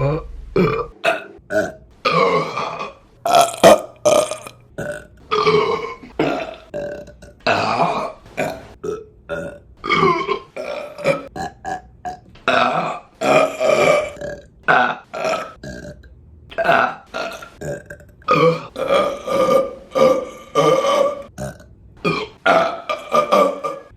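Women burping: a quick run of many separate burps from different people, some short and others long and drawn out.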